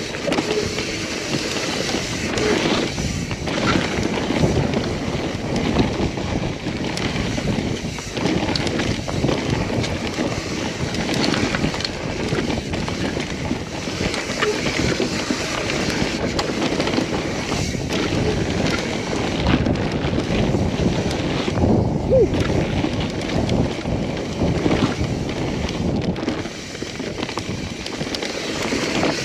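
Mountain bike riding down a dirt singletrack: tyres rolling over dirt and roots, and the chain and frame clattering over bumps, with wind buffeting the microphone.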